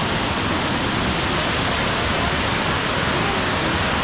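Waterfall pouring close by: a steady, even rush of falling water.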